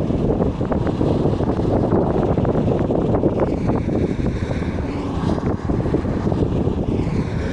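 A bus in motion gives a steady rumble of road and running noise, with wind buffeting the microphone and scattered crackles.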